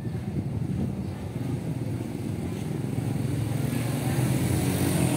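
Motorcycle engine running in the street, growing louder from about three seconds in as it approaches.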